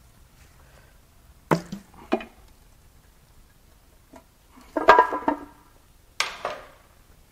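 Metal clanks and knocks as the oil pan is worked loose and pulled off a Nissan SR20DET engine: a couple of sharp knocks one and a half to two seconds in, a louder ringing clank about five seconds in, and another knock near the end.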